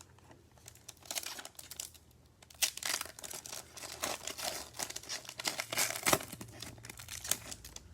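Foil trading-card pack wrapper being torn open and crinkled by hand, starting about a second in as irregular crackles and tears.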